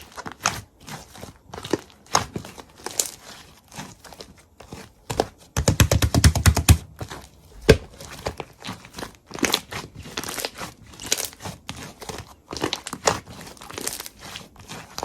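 Irregular crinkling and crackling, with a dense run of rapid close-up rustles and low thumps about six seconds in.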